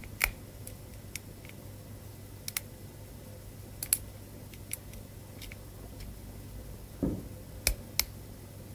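Metal lock pick and tension wrench working the pins of a brass ABUS 60/40 padlock during single-pin picking: irregular small sharp clicks, roughly one every second or so, with a duller knock about seven seconds in.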